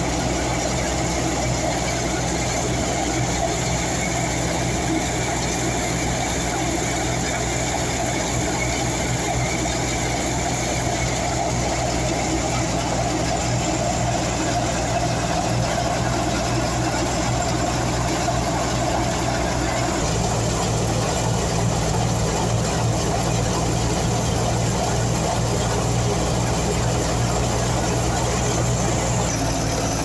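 Wheat threshing machine running steadily under load as straw is fed in, a constant engine drone with the whir of the threshing drum. The sound shifts slightly about twenty seconds in.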